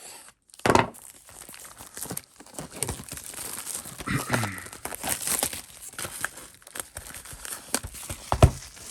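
Plastic wrapping crinkling and tearing as a hockey card hobby box is unwrapped and opened, with a couple of louder knocks, one near the start and one near the end.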